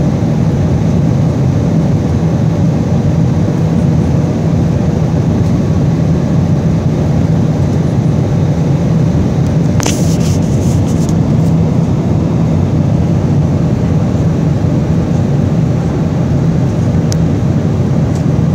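Steady engine and airflow noise of an Airbus A320-214 with CFM56 turbofans, heard inside the passenger cabin on final approach. A brief crackle comes about halfway through.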